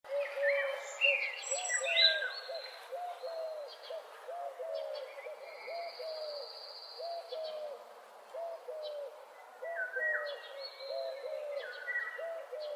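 Birds calling: a steady run of short, low whistled notes, just under two a second, each rising then dipping, with higher chirps and gliding calls over them, busiest in the first two seconds and again near the end.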